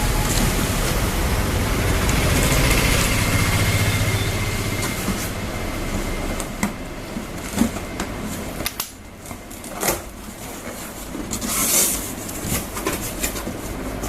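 Electric motor and gearbox of an RC crawler truck whirring steadily with a faint whine, then running more quietly and unevenly with scattered clicks and knocks and a brief loud rush near the end.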